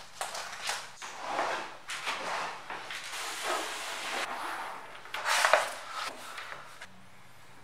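Household objects being handled: a series of light knocks and rubbing sounds, with the loudest knock about five and a half seconds in.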